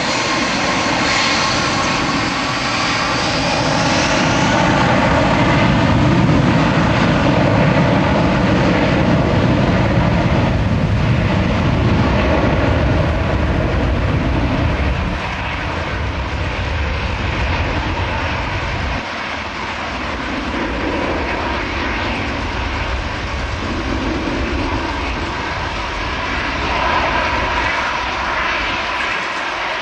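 Jet engine noise from an Airbus A321-231, whose engines are IAE V2500 turbofans: a loud, steady rush with faint tones in it, swelling to its loudest about a quarter of the way in and easing off over the second half.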